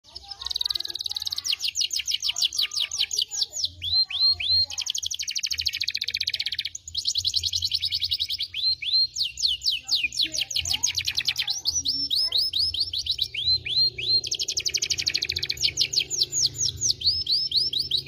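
Domestic canary singing a long, fast song of rapid trills and rolls, with runs of repeated downward-sweeping notes and a brief break about seven seconds in.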